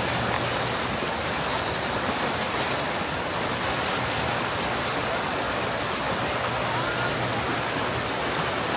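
Steady rushing and churning of water thrown up by the propeller of a Mercury Avator 7.5e electric outboard running under power, with a faint steady low hum underneath.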